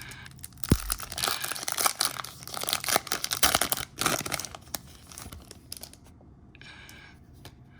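Foil trading-card pack wrapper being torn open and crinkled, loudest over the first four seconds or so, then dying away to faint handling.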